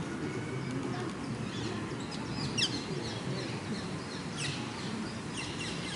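Birds chirping in short, quick downward-sweeping calls, clearest about two and a half seconds in and again near four and a half seconds, over a low murmur of distant people talking.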